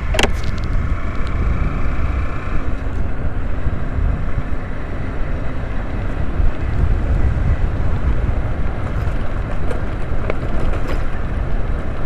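Motorcycle riding along a dirt road: a steady, deep rush of wind on the microphone and road noise.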